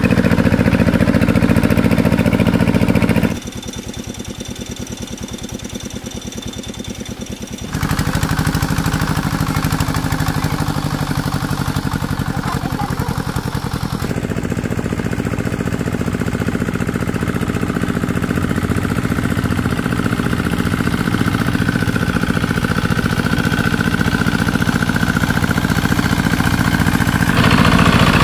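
An engine running steadily with a regular chugging pulse. It turns abruptly quieter about three seconds in, comes back louder some four seconds later, and shifts in tone twice more, near the middle and near the end.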